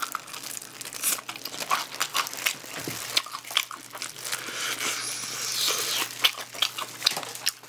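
Biting and chewing crispy sauced fried chicken, its coating crunching in many sharp crackles. Disposable plastic gloves crinkle as the piece is pulled apart by hand, densest about halfway through.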